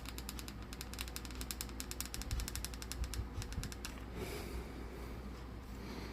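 Rapid, even clicking of a hot glue gun's trigger-feed mechanism as glue is squeezed out along the base, stopping about four seconds in and starting again near the end.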